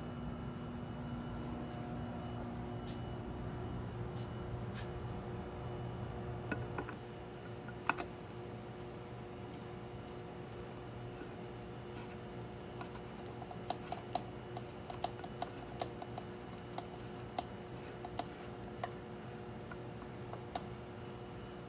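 Small clicks and scrapes of a light bulb with a socket adapter being handled and screwed into a porcelain ceiling lampholder, scattered through the second half, over a steady low hum.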